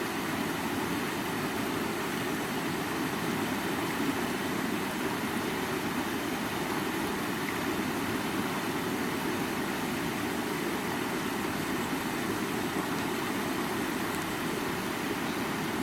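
River water flowing: a steady, unbroken rushing with most of its weight in the low-middle range.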